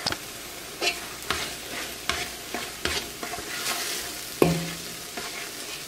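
Eggs cooking down in a spiced onion-and-broth mixture in a nonstick pot with a steady hiss, while a spoon stirs and scrapes the pan, knocking against it about once a second, most sharply about four and a half seconds in. This is the egg filling for chicken pastilla being cooked until it sets and dries out.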